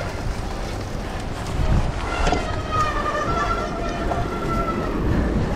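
Wind rushing over an action camera's microphone and the low rumble of a cyclocross bike rolling over a dirt course. About two seconds in, a high wavering squeal with overtones starts and lasts nearly three seconds.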